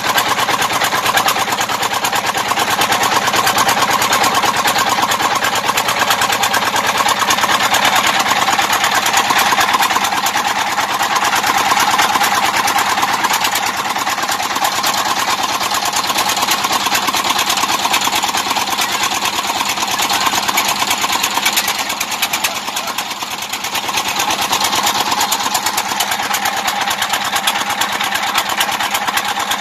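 Small diesel engine running steadily with a fast, even beat. It drives the pump emptying water out of the raised tugboat's hull.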